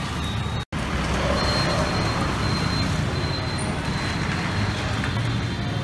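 Steady din of street traffic, with the whole sound cutting out for an instant just under a second in.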